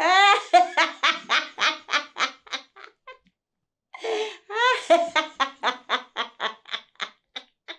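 An elderly woman laughing loudly in two long bouts of rapid ha-ha-ha pulses, about four a second. Each bout starts on a high falling note, and there is a short pause between them.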